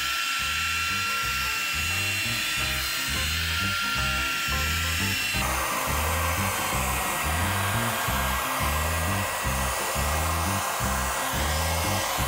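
Background music with a steady beat, over the high whine of a compact router running a 1/8-inch roundover bit along the edge of a pine board.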